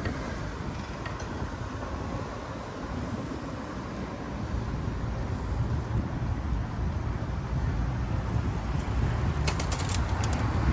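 Steady outdoor road noise, a low rumble and hiss of traffic and wind on the microphone while riding. A few light clicks come about nine and a half seconds in.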